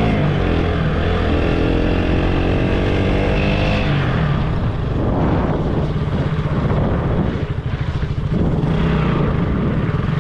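KTM motorcycle engine pulling under throttle, its pitch climbing, then breaking off at a gear change about four seconds in. The throttle eases a few seconds later, and the engine settles back into a steady pull near the end, with road and wind noise throughout.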